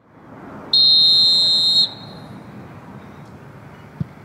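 A referee's whistle blown in one long, steady, high blast of about a second, over open-air field noise. Near the end comes a single dull thump.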